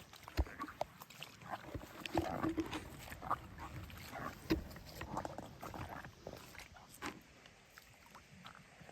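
Feet wading through shallow floodwater: irregular splashes and sloshes, thinning out toward the end.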